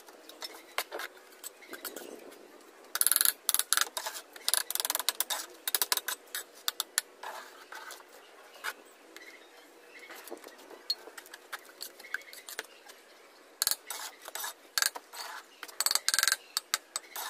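Bricklaying: mortar scraped and spread with a trowel and hollow clay bricks set and tapped into place, making quick scrapes and clicks. They come in two busy spells, a few seconds in and again near the end.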